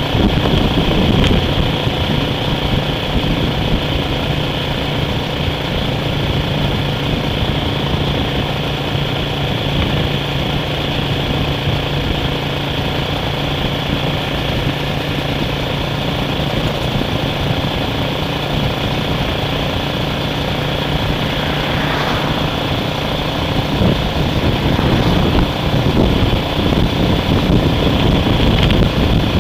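Steady engine hum and road noise of a vehicle being driven, running evenly without any sharp events.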